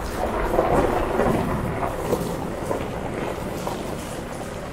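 4x4 towing a caravan, driving slowly on a loose gravel track: steady rumble and crunch of tyres on stones with the engine running, and wind buffeting the microphone at the open side window.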